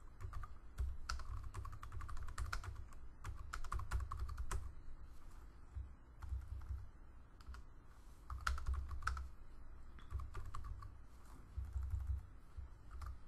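Typing on a computer keyboard in short bursts of quick keystrokes, with brief pauses between the bursts.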